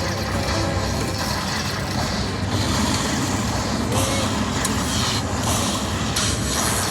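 Casino floor din: a steady, dense wash of slot-machine noise and background chatter, with faint scattered chimes.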